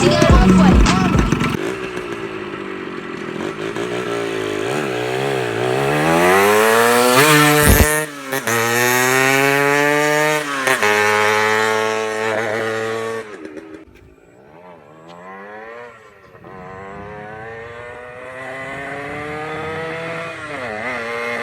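Yamaha RXT 135 two-stroke single-cylinder motorcycle engine revving up and down in blips, with a sharp crack about eight seconds in. About halfway it sputters and almost dies, then picks up again and climbs steadily in revs; the rider takes the stumble for the tank running out of gas.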